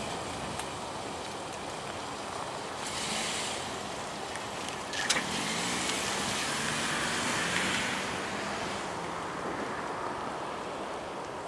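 Steady outdoor noise of wind and distant vehicles. About five seconds in a vehicle passes closer, its engine hum rising and falling, with a sharp click as it starts.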